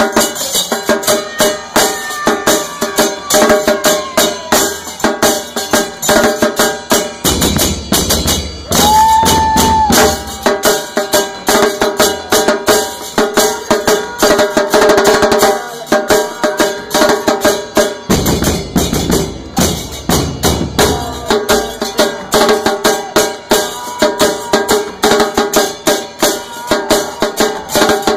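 Loud dance music with a fast, steady percussion beat.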